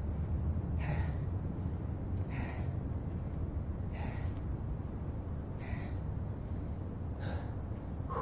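A man breathing hard, catching his breath between sets of push-ups and squats: five heavy breaths about a second and a half apart, over a steady low rumble.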